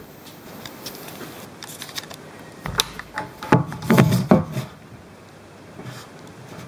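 Handling noise as the camera is moved around: a sharp click a little under three seconds in, then a short cluster of knocks and rubbing about a second later.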